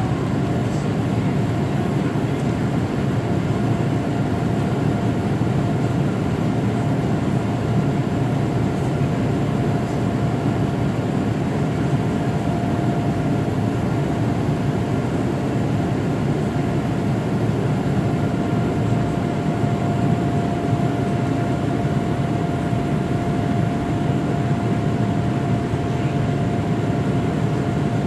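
Steady cabin noise of a Boeing 787 Dreamliner in its climb after takeoff, heard from inside the cabin: an even, low rush of engine and airflow with a thin steady tone running through it.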